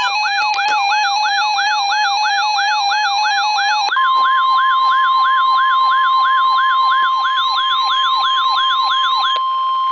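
Weather alert radios alarming for a flood warning. A rising-and-falling siren whoop repeats about two and a half times a second over a stepped beeping alarm tone. About four seconds in the beeping gives way to the steady NOAA Weather Radio 1050 Hz warning alarm tone, and the siren cuts off near the end.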